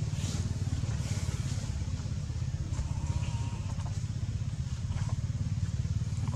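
Steady low rumble of a running engine, even in level throughout.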